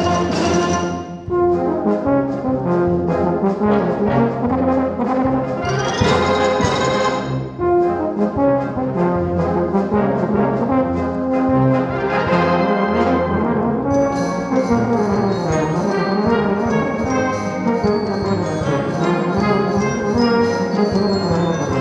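Euphonium solo with brass band accompaniment, playing continuously. A fast, even high ticking joins about two-thirds of the way through.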